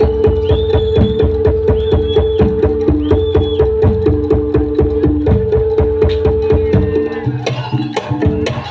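Live music: fast, dense drumming under a long held melodic tone, with short high melodic phrases over the top. The drumming and melody change character near the end.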